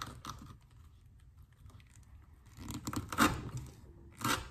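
Knife blade sawing through 3/4-inch manila rope, rasping and tearing as the fibres part. The strokes come in a run about two and a half seconds in, with one more short stroke near the end.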